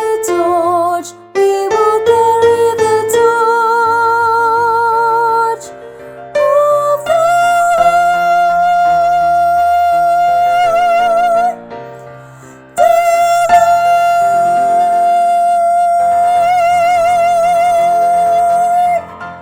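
A woman's mezzo-soprano voice singing the closing phrases of a choral song over piano accompaniment, holding long notes with vibrato. The last note is held for about six seconds and stops shortly before the end, as the music fades.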